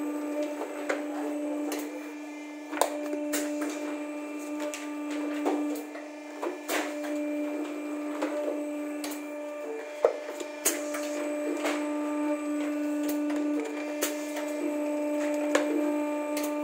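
Bookbinding casing-in machine running with a steady electric hum, overlaid by irregular clacks and knocks as hardcover books are fed into it and the mechanism cycles, one sharper knock about ten seconds in.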